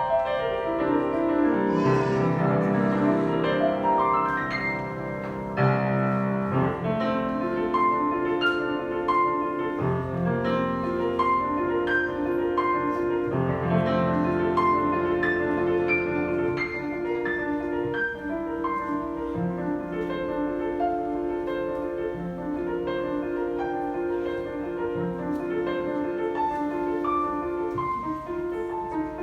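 Instrumental background music led by piano: a steady flow of notes over sustained low chords.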